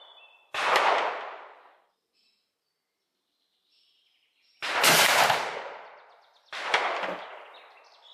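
Three shots from a .61-calibre percussion over-under double rifle loaded with black powder. Each is a sharp crack whose echo dies away over about a second. The second comes about four seconds after the first, and the third about two seconds after that.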